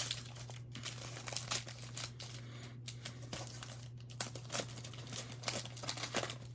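Foil trading-card pack wrapper crinkling in the hands: irregular crackles, over a steady low hum.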